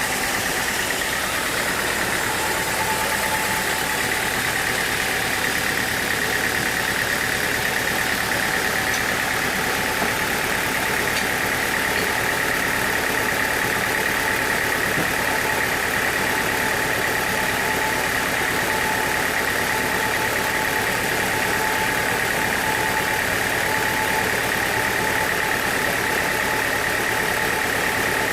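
Sawmill machinery running steadily, a continuous mechanical din with a high whine, and a second, lower whine joining a few seconds in.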